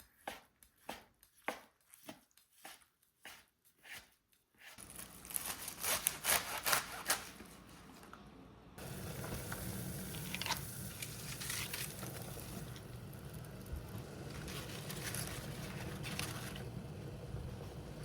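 Kitchen knife chopping on a cutting board: a run of single strokes with short gaps, then quicker scraping strokes. About nine seconds in, a steady hiss with a low hum takes over, with a few light knocks over it.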